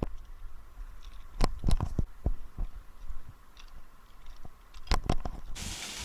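A few sharp knocks and clatters, then, about five and a half seconds in, a steady sizzle starts suddenly: potatoes frying in a pan.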